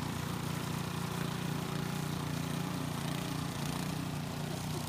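Gas-powered walk-behind snowblower engine running steadily at a constant pitch as the machine clears and throws snow.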